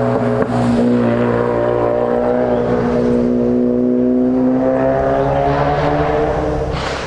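A vehicle engine held at steady high revs, a loud continuous drone that fades out near the end.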